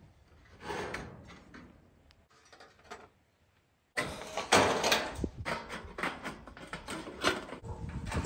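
A corrugated steel roofing panel being handled: scraping, knocking and rattling as the sheet slides and flexes. A few quiet scrapes come in the first seconds, and from about four seconds in a loud, dense clatter of knocks and scrapes runs on.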